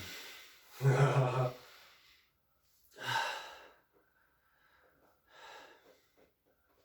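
A man's brief low vocal sound about a second in, then a sharp breath about three seconds in and a fainter breath a couple of seconds later, as a patient breathes through deep pressure on the shoulder muscles. No joint cracks are heard.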